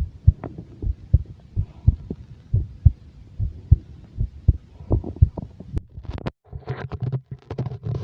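Stomach growling: irregular low gurgles and pops, two or three a second. It cuts out briefly just after six seconds, then comes back as a denser rumbling with gurgles.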